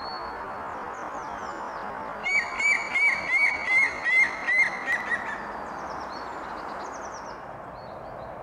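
Eurasian nuthatch calling a series of about eight loud, evenly spaced piping notes, roughly three a second. The notes start a couple of seconds in and stop about halfway through. Faint high chirps of other small birds and a steady hum of distant road traffic run underneath.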